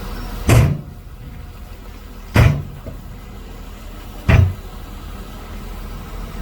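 Shantui DH17C2 bulldozer running steadily, with three heavy clunks about two seconds apart.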